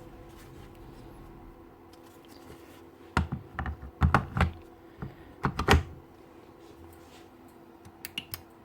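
Clicks and knocks in three quick clusters, with a few lighter ticks near the end, from a Milwaukee M18 cordless magnetic drill being switched and handled while its motor fails to start. The owner takes this for a dead motor.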